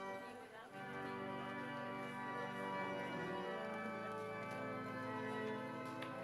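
Organ playing slow, held chords that change a few times.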